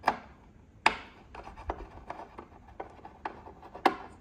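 A small hand tool clicking and tapping against screws and metal parts inside an opened audio streamer's chassis. Sharp clicks come just at the start, about a second in and near the end, the last the loudest, with lighter ticks in between.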